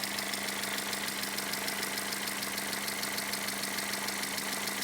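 Toyota Corolla 4ZZ-FE inline-four engine idling with a rapid, even ticking from the cylinder head. The owner puts the knock down to badly set valve clearances, some too tight and some too wide, rather than the timing chain.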